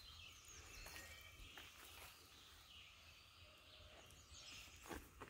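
Near silence: quiet woodland ambience with a few faint bird chirps.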